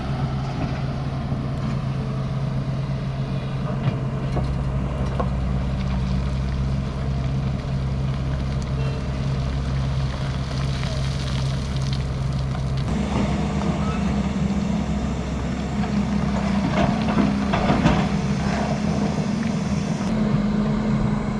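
Heavy diesel engine of earth-moving machinery running steadily, its note stepping up to a higher engine speed about two-thirds of the way through, with a few knocks and clatters soon after.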